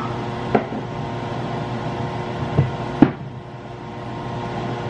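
A steady hum of several fixed pitches, with three short knocks of kitchen items being handled: about half a second in, then twice close together around two and a half and three seconds in, the last the loudest.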